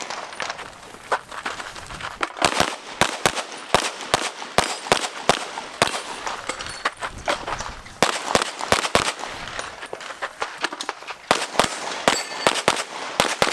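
Rapid pistol gunfire from an Open-division competition handgun, shots fired in quick pairs and strings with short pauses between strings.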